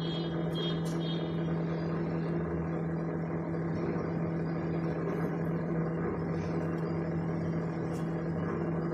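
A steady mechanical hum with a constant low tone, unchanging throughout.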